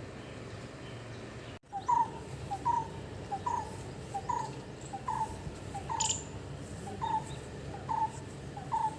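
A bird repeating a short two-note call, a lower note then a higher one, about once a second, starting about two seconds in after a brief dropout. Over a steady low background hum, with one sharp click partway through.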